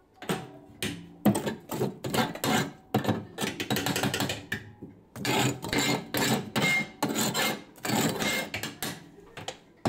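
Hand tool scraping and rasping on a kitchen wood stove in runs of quick strokes with short pauses, as the stove is worked over for a new layer of fire clay.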